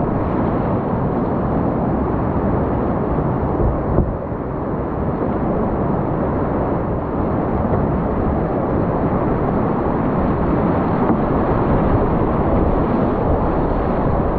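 Whitewater rapid rushing around a kayak running through boulders, heard from the boat: a loud, steady, dense rush weighted toward the low end.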